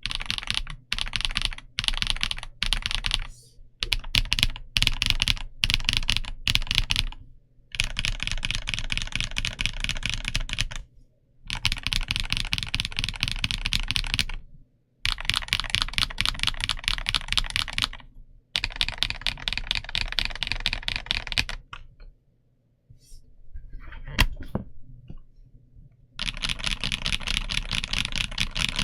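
Fast typing on a BOYI C75Pro mechanical keyboard: quick runs of clacking keystrokes broken by brief pauses, with a slower stretch of scattered key presses a little past the middle.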